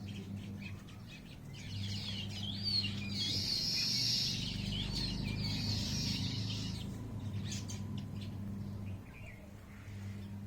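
Birds chirping, with a dense burst of many quick overlapping calls in the middle that thins out after about seven seconds. A steady low hum sounds underneath.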